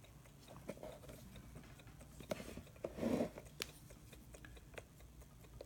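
Faint, scattered light clicks and a brief rustle from handling the electric aircraft clock's mechanical movement and its power lead, with a few irregular small clicks.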